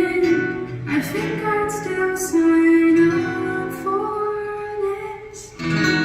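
A woman singing held notes over guitar accompaniment in a live performance of a song; a new guitar chord is struck near the end.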